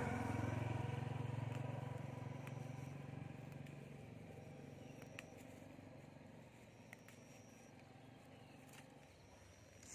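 A passing vehicle's engine hum, fading steadily away over the first four seconds. After that, a few faint clicks as mugwort stems are picked by hand.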